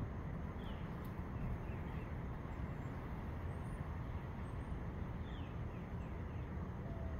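Steady low outdoor rumble with faint bird chirps now and then; the pour of molten metal itself makes no clear sound.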